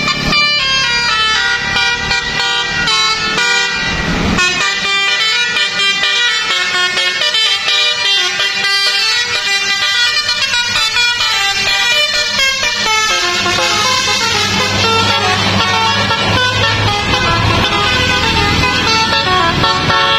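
A bus's "telolet basuri" multi-tone air horn playing a tune, note after note, over a bus engine running. There is a brief burst of noise about four seconds in, and the engine grows heavier about two-thirds of the way through.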